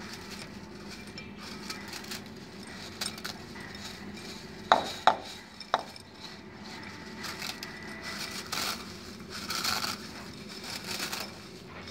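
Dry Maggi instant noodles being crushed by hand in a glass bowl: a soft, uneven crackle of breaking noodles, with three sharp clinks against the glass bowl about five seconds in.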